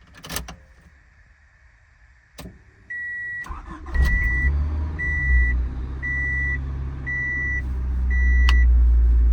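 Honda Del Sol's four-cylinder engine cranked and catching about four seconds in, then running steadily on its own after the key is released: the sign that the cleaned-up ignition switch no longer cuts the engine. Two clicks come first, and a dashboard warning chime beeps about once a second as the engine starts.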